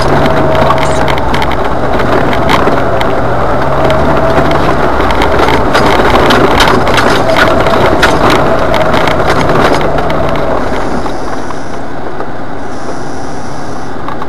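Jeep Wrangler driving along a bumpy dirt trail, heard from a dash camera inside the cab: the engine runs steadily under many small knocks and rattles. About eleven seconds in the rattling stops and the sound settles to an even, slightly quieter engine hum as the Jeep comes to a stop.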